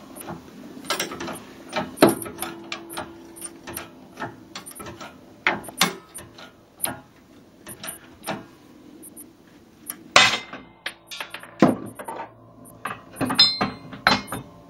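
Wheel hub and seized wheel bearing being forced out of a steering knuckle in a 12-ton shop press: an irregular series of sharp metallic cracks, clicks and knocks as the stuck bearing gives way and breaks apart. The loudest cracks come about 2, 6, 10 and 13 seconds in.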